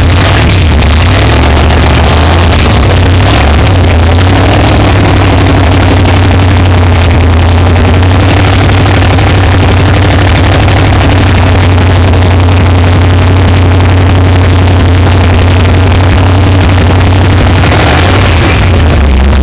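Freshly built big-block V8 running loud on its first start, through open stainless headers into water-sprayed exhaust tips. The engine note wavers in the first few seconds as the throttle is worked, then settles into a steady, fast idle.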